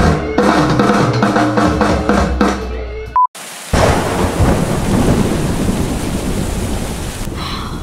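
Music with drums and a steady bass for about three seconds, cut off by a short high beep. Then heavy rain pours with thunder rumbling.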